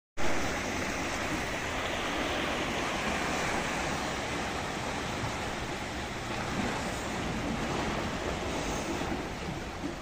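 Sea surf washing and splashing over shoreline rocks, a steady rushing wash.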